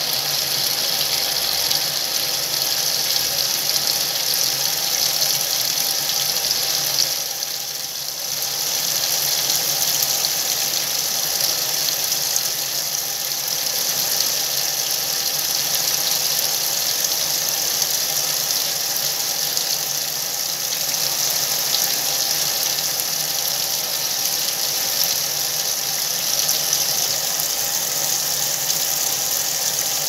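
Whirlpool top-load washing machine filling: water pouring in a steady stream from the fill inlet into the tub onto the wet load, a constant splashing hiss that dips briefly about seven seconds in.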